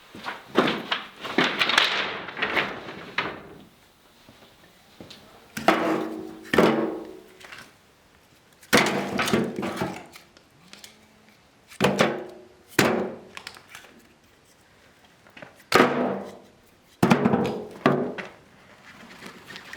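A series of heavy knocks at irregular intervals, some in close pairs, each ringing briefly.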